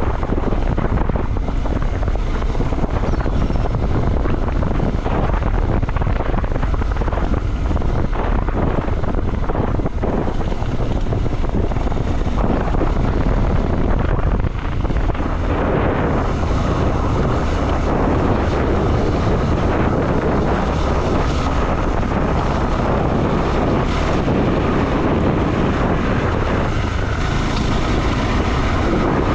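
Motorcycle engine running under way, with wind rushing over the microphone; the sound shifts in character about halfway through.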